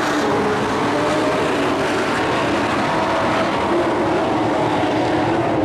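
Engines of a field of dirt-track race trucks running at racing speed, a steady loud drone in which several engine pitches overlap and drift slightly as the trucks circle the track.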